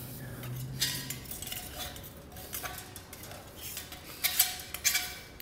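Metal rod scraping and rattling inside a rusty steel diesel exhaust filter housing, knocking packed soot loose, in irregular strokes that grow louder near the end. The filter is stopped up with soot.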